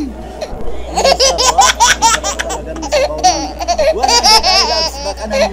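Loud, high-pitched laughter: a run of quick laughing pulses starting about a second in.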